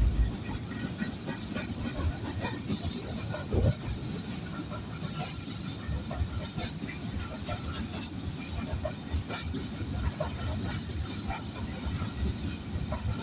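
Goods train wagons rolling past on the rails: a steady rumble with scattered wheel clicks and clanks, and one louder knock about three and a half seconds in.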